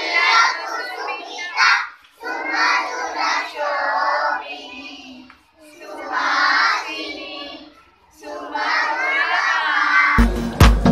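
Small children singing a prayer together, in phrases with short pauses between them. Near the end, background music with a steady beat comes in.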